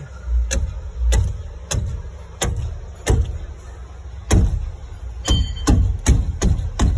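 About a dozen sharp knocks, each with a dull thump, at uneven gaps of roughly half a second: the 1999 Mercedes-Benz E430 is being knocked on to jar the fuel tank's float and test the sender for a loose or faulty float.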